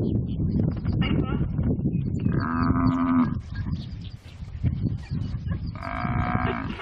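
A buffalo being eaten alive by spotted hyenas, giving two long distressed bellows, one a couple of seconds in and one near the end, over the steady tearing, chewing and jostling of the feeding pack.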